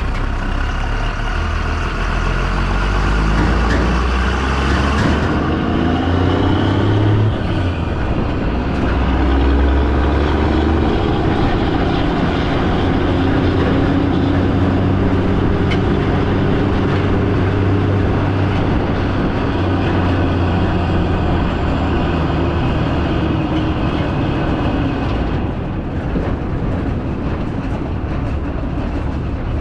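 A heavy vehicle's engine running under way, a steady low drone whose pitch rises and falls as it changes speed, with a shift in the sound about six seconds in.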